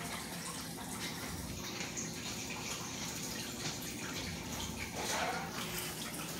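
Steady rush of water circulating in a 55-gallon saltwater aquarium, over a low steady hum.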